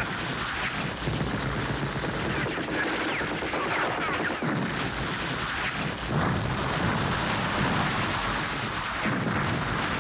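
Sustained rapid gunfire mixed with explosions: a firefight in film sound effects, dense and unbroken, with many shots close together.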